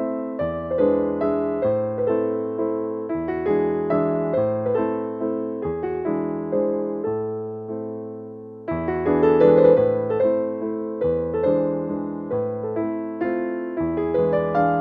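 Piano music played on a keyboard: chords and a melody over slowly changing bass notes. The notes fade about eight and a half seconds in, and a new, louder phrase starts.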